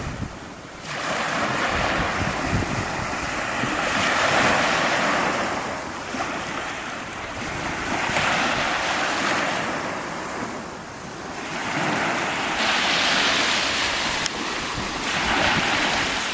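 Sea of Azov waves breaking on the shore, the wash swelling and fading every few seconds, with wind buffeting the microphone.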